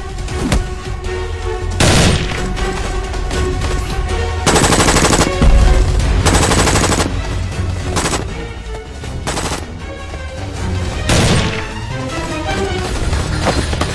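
Automatic rifle fire in rapid, repeated bursts, several of them very loud, over a dramatic action-film music score.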